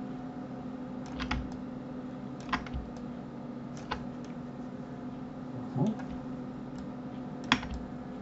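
Sparse clicks from a computer keyboard and mouse, a handful spread out over several seconds with the sharpest near the end, over a steady low hum.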